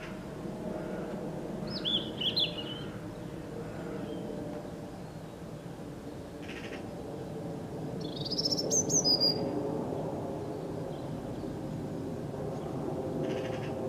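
A robin giving two short vocal phrases: one about two seconds in, and a higher, rising one about eight seconds in. A steady low background hum runs underneath.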